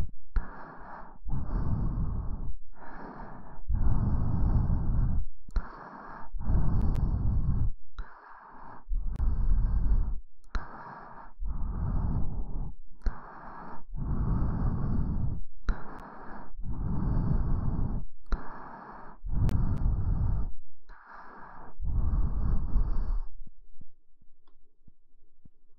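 Ear massage on an ASMR microphone's ears: about eighteen rough rubbing strokes of roughly a second each, one after another with short gaps between them. The strokes stop near the end.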